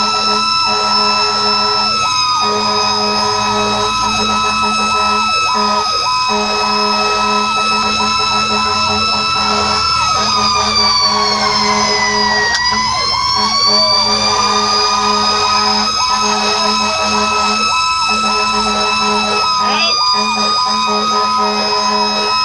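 Fire engine sirens sounding continuously. A steady high siren tone sags in pitch about halfway through and climbs back, over choppier, rapidly broken siren tones lower down.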